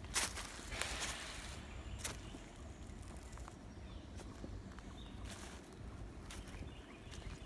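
Footsteps on the forest floor: a few irregular crunching steps through leaf litter and brush, over a steady low rumble.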